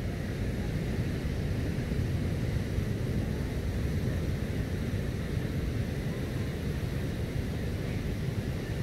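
Steady low rumble of wind on the microphone mixed with breaking surf.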